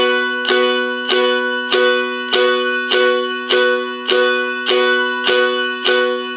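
Seagull M4 spruce-top mountain dulcimer in G D G tuning, strumming a B chord barred at the second fret. The strums come evenly, about one every 0.6 s, and each rings into the next.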